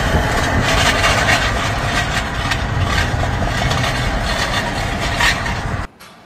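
Vehicle on the road with its engine running and steady, heavy road noise, cut off abruptly near the end.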